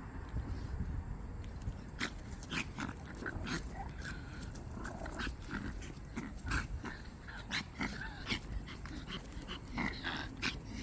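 A Pomeranian making a run of short, quick, irregular sounds starting about two seconds in, over a steady low rumble.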